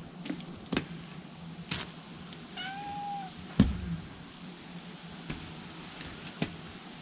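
A domestic cat meows once, a drawn-out call, among several sharp clicks or knocks; the loudest knock comes just after the meow.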